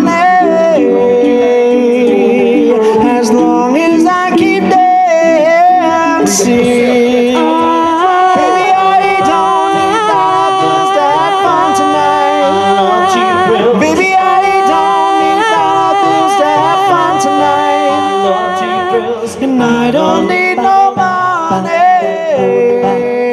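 Four-man a cappella quartet singing in close harmony, several voices holding and shifting chords together with no instruments.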